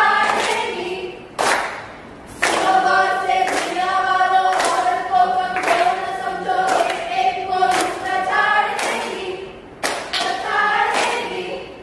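A group of voices singing a chant together in unison, with sharp hand claps keeping a beat about once a second. The singing breaks off briefly about two seconds in, then carries on.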